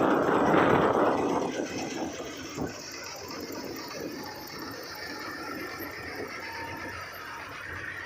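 Combine harvester running steadily as it cuts and threshes wheat, an even engine-and-machinery drone, with a louder rush of noise in the first second and a half.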